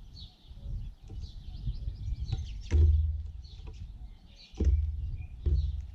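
Birds chirping with many short, high calls, broken by low thumps, the loudest about three seconds in and again near five seconds.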